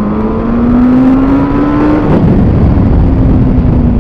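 Yamaha FZ8 motorcycle's inline-four engine through its stock exhaust, accelerating with a steadily rising pitch for about two seconds. It then drops to a lower pitch and runs on steadily, under heavy wind noise on the microphone.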